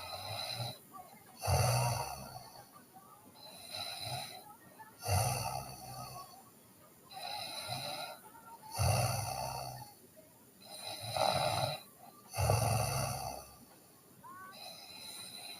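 A sleeping person snoring: regular breath sounds about one every two seconds, with louder and softer ones taking turns.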